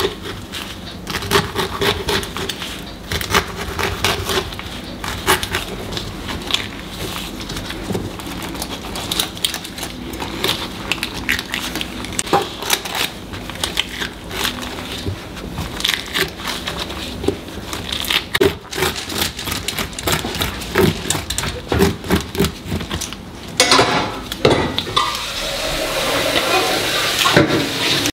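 A kitchen knife cutting and scoring the flesh of a halved pineapple on a cutting board, with many quick clicks and taps of the blade on the board and juicy scraping as the chunks are cut loose. A steady hiss takes over in the last few seconds.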